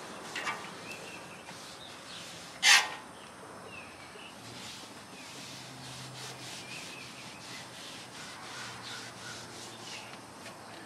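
Wad of paper towel held in tongs, rubbed back and forth across the hot steel top of a Blackstone griddle to spread a thin coat of seasoning oil: a steady scrubbing rub. One short, loud noise about two and a half seconds in, and faint bird chirps.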